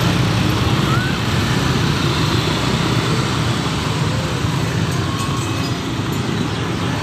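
Street traffic: motor scooters and cars running past on a busy street, a steady low rumble.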